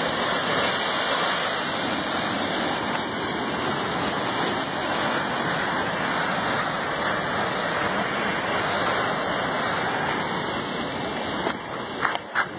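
Ocean waves surging into a narrow rock chasm and bursting into spray: a steady, loud rush of churning sea water. It eases near the end, where a few sharp clicks come in.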